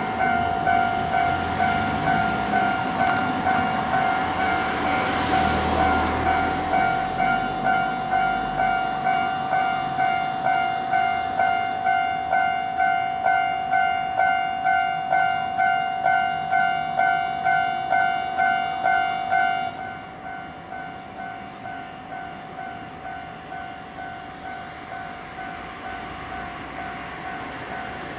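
Japanese level-crossing warning alarm ringing a steady, repeating ding, about one and a half strikes a second, while a train rumbles over the crossing for the first several seconds. About twenty seconds in, the alarm drops to a noticeably quieter, duller ring and keeps going.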